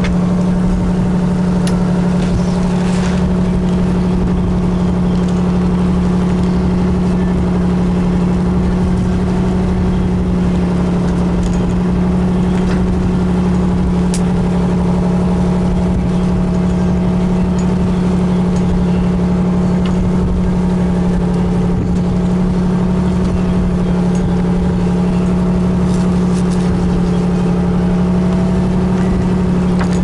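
Fishing boat's engine running steadily under way, a loud, unchanging drone. A few faint knocks and clatter sound over it.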